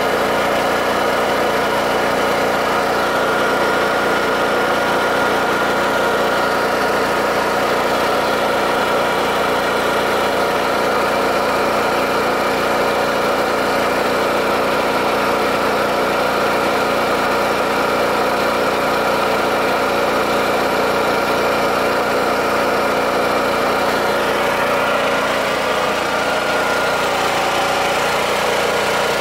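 Honda EU7000is fuel-injected inverter generator's engine running steadily at high speed, about 3,550 rpm, under a heavy electrical load of about 6,650 VA.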